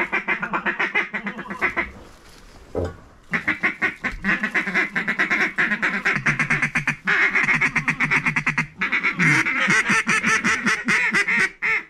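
Mallard duck calls blown by hunters: fast runs of quacks and feed chatter, with short breaks about two seconds in and again near seven and nine seconds, calling to a flock of ducks overhead.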